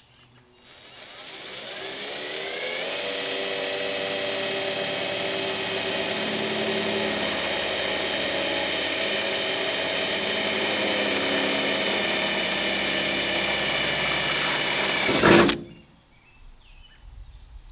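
Cordless drill boring a pilot hole through the truck's sheet-metal bed side: the motor winds up over the first couple of seconds, then holds a steady high whine for about twelve seconds. Just after fifteen seconds in there is a short louder burst, and the drill stops suddenly.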